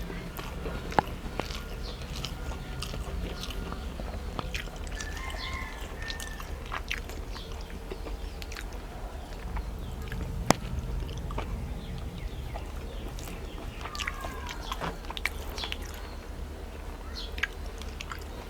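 A person eating rice with fish curry: chewing and moist mouth noises with scattered small clicks, two sharper ones about a second in and near the middle, over a steady low hum.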